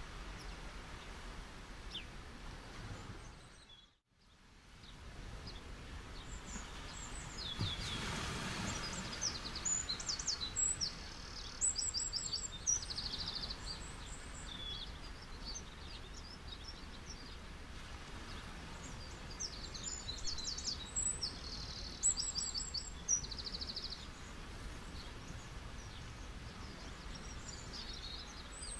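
Gentle sea waves washing on a beach as a steady hiss, with a swell about eight seconds in, and birds chirping in quick high trills in two spells, one after about ten seconds and one after about twenty. The whole sound fades almost out and back briefly about four seconds in.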